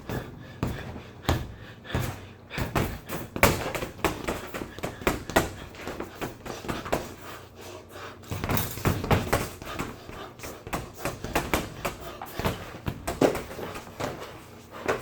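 Irregular thumps, taps and knocks, several a second, in a small room.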